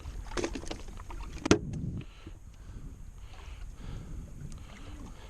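Handling noises in a fishing boat: a few light clicks, then one sharp knock about one and a half seconds in, over a steady low rumble.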